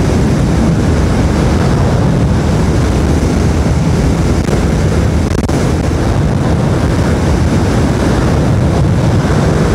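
Steady wind buffeting on the microphone of a Yamaha Aerox 155 scooter running at full speed, with the scooter's engine and road noise underneath.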